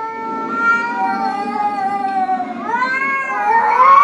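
A cat yowling in long, drawn-out, wavering calls. One call falls slowly, then a second rises higher about three seconds in. This is the warning yowl of a cat facing off another cat nose to nose.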